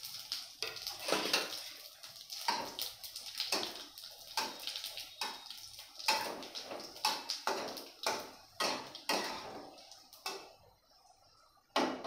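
Whole spices (bay leaf, cinnamon, dried red chillies, cumin) crackling and spluttering in hot oil in an aluminium kadai while a metal spatula stirs and scrapes them. The crackling thins out and fades about ten seconds in, and a single sharp metal clink comes near the end.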